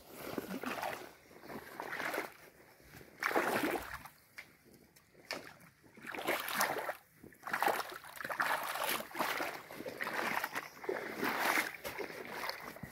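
Gumboots wading through shallow muddy water in a drained fish pond, sloshing and splashing in irregular steps, with short pauses between them.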